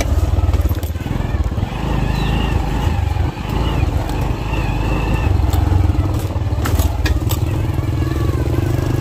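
Motorbike engine running steadily at low revs while the bike rides down a rough, muddy dirt track, with sharp knocks and rattles from bumps about seven seconds in. Brief high squeaks sound a few times in the first half.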